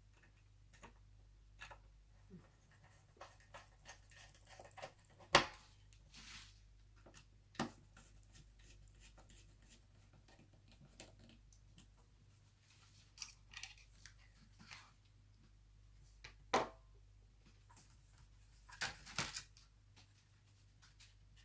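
Scattered clicks, taps and knocks of laptop hardware being handled and fitted together during reassembly, the sharpest about five seconds in and again near the end, over a low steady hum.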